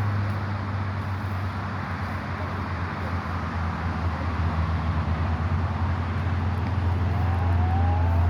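Chainsaw engine running steadily at a fairly constant speed, its pitch sagging slightly partway through.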